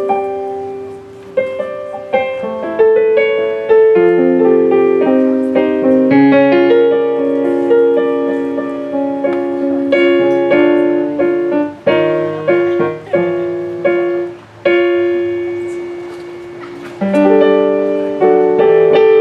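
Piano or keyboard playing an instrumental passage of struck chords with a melody on top; the notes ring on and fade between strikes.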